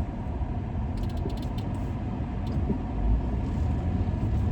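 Road and engine rumble inside a moving car's cabin, with a few light clicks and creaks about a second in.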